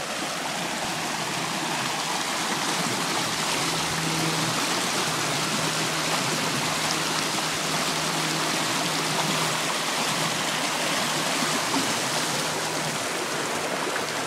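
River water rushing steadily, an even unbroken wash of flowing water.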